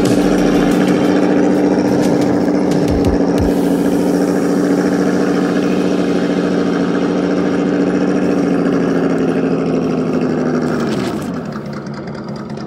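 RC crawler's Holmes Hobbies Trailmaster 550 brushed electric motor and geared drivetrain whining at a steady pitch as it drives, then falling in pitch and loudness about eleven seconds in as it slows.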